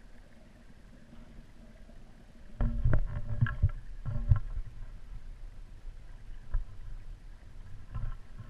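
Underwater camera being moved and bumped on the bottom of a koi pond: a cluster of thumps and knocks with a low rumble starting about two and a half seconds in and lasting about two seconds, then two single knocks later. A steady low hum with a few faint steady tones runs underneath.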